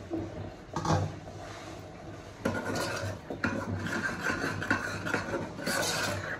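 A spoon stirring thick curry gravy in a pot, scraping repeatedly against the pot from about two and a half seconds in. A single knock comes about a second in.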